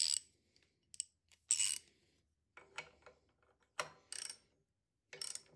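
Ratcheting spanner tightening a bolt into a metal headstock: short ratchet strokes, about seven, coming at uneven intervals.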